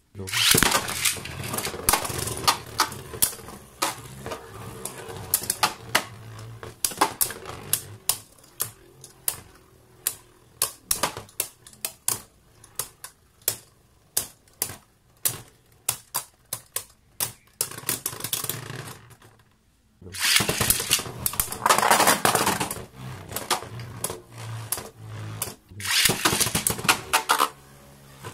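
Beyblade Burst spinning tops launched into a plastic stadium, spinning with a steady whir and clashing in rapid sharp clicks and knocks. The battle ends about 20 seconds in, and a fresh launch starts a second battle right after.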